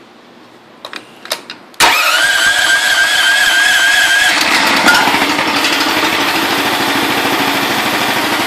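A few clicks, then the small engine of a homemade articulated garden tractor starts with a sudden loud burst just under two seconds in. A steady high whine lasts about two seconds, then the engine settles into a steady run while turning the belt-driven hydraulic pump.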